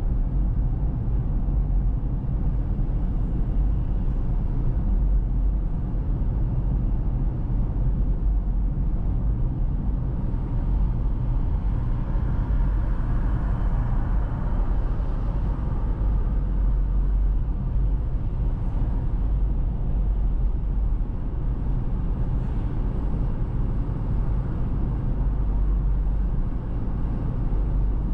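A car driving steadily along a road: a constant low rumble of road and wind noise. About halfway through, a higher hiss swells and then fades.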